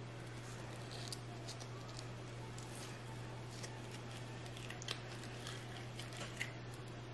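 Soft scraping and small clicks of a knife slicing and scooping avocado flesh out of its skin, a few sharper clicks among them, over a steady low hum.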